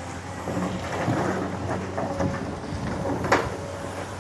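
Excavator working earth: the diesel engine runs steadily under crunching, scraping soil, with one sharp knock about three seconds in.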